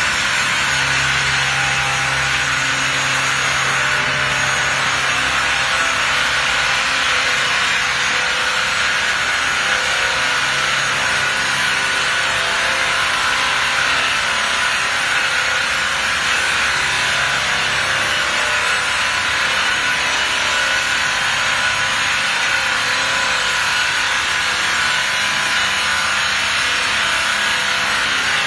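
Multi-blade circular rip saw cutting lengthwise through a log as it feeds through: a steady, loud sawing noise with a constant high whine.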